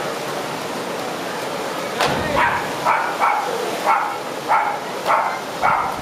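Waterfall rushing steadily. About two seconds in, after a sharp click, a dog starts barking repeatedly, about two barks a second, louder than the falls.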